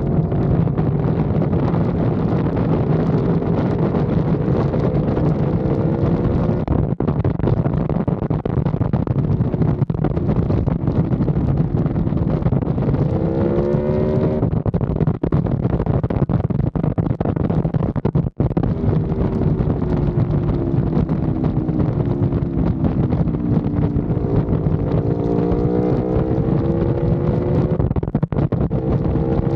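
Aprilia Tuono motorcycle engine at highway speed under steady wind rush. Its note rises in pitch as it accelerates about halfway through and again near the end, with a brief dropout in between.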